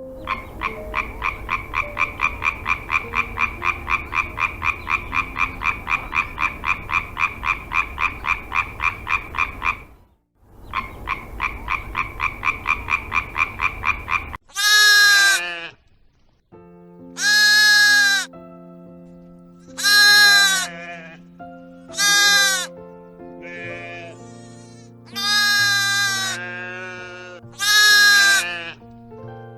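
A frog calling in a fast, even trill of about five pulses a second, with a short break about a third of the way through. About halfway, this gives way to around six loud bleats, one every two to three seconds, over held notes of background music.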